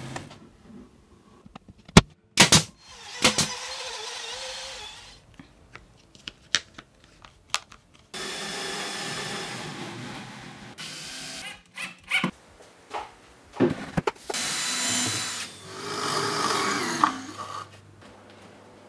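Power tools run in several short stretches, whirring with pitch that wavers and glides, between sharp knocks and clatter of wooden panels.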